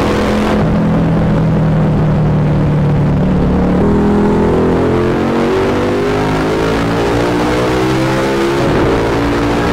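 Motorcycle engine and exhaust running at steady cruising speed through a road tunnel. About four seconds in it gives way to a KTM 1290 Super Duke GT's V-twin, its pitch creeping slowly upward, with a brief change near the end.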